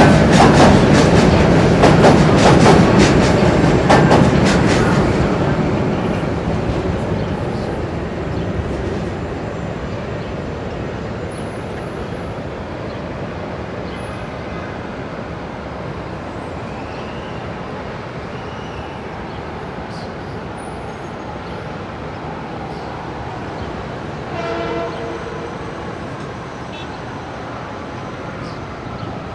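Metro-North commuter train passing close, its wheels clacking rhythmically over rail joints, then fading away to a low rumble. A brief horn note sounds near the end.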